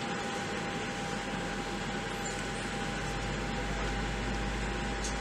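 Steady cabin noise inside a Boeing 737-700 on the ground: an even rush of air with a steady whine, and a low rumble that builds from about two seconds in.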